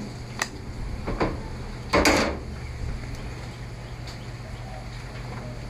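Snap-fit plastic back cover of a Samsung Galaxy Tab 4 being pried at: a few sharp clicks, with a louder, longer scrape-and-snap about two seconds in.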